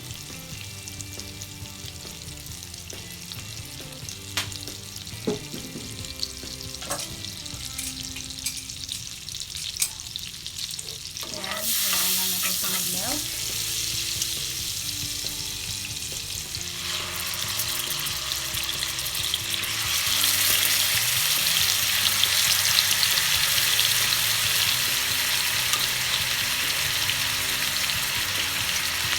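Butter and cooking oil sizzling in a frying pan, with a few sharp taps about four to seven seconds in; the sizzle turns much louder about twelve seconds in and again near twenty seconds, as pieces of marinated chicken breast go into the hot fat to fry.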